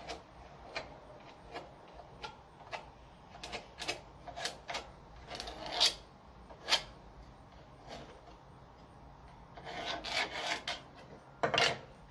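Pencil scratching on wood in short, irregular strokes as outlines are traced around wooden templates onto wood blanks. There is one sharp wooden knock about seven seconds in, and a denser run of scratching and handling near the end.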